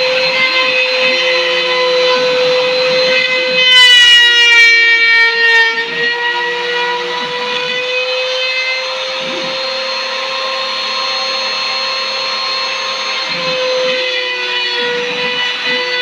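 CNC machine running: a steady high spindle whine, with lower motor tones switching on and off every second or so as the axes move. About four seconds in, a higher whine sweeps downward for a couple of seconds.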